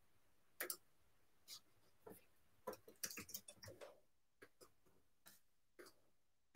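Faint, irregular clicking of a computer keyboard and mouse, with a quick run of clicks about three seconds in.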